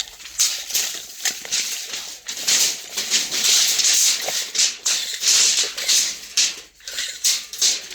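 Tape measure bodies and blades being handled during a blade swap: an irregular run of rattling, scraping and clicking.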